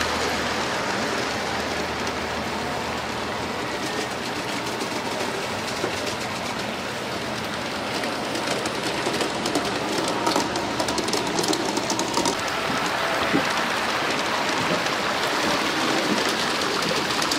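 A large-scale garden-railway model freight train rolling past, its wheels clicking and clattering over the rail joints, loudest and busiest from about halfway through, over a steady hiss.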